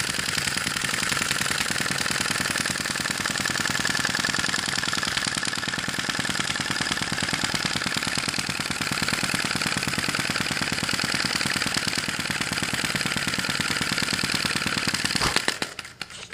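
Sai Hu V1-45 flame-licker (vacuum) model engine running with a fast, steady mechanical clatter. Near the end it stops within about a second instead of coasting down.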